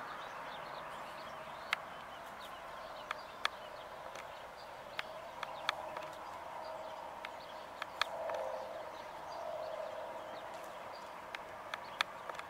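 California scrub-jay pecking at a plastic dish: about a dozen sharp taps of its beak at irregular intervals, a few of them in quick pairs.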